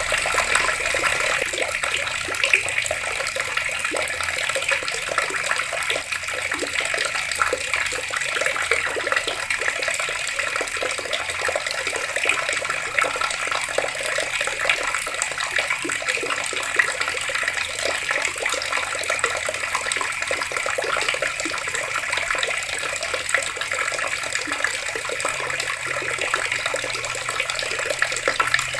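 Water taps running and splashing steadily, a dense, even patter of falling water without pause.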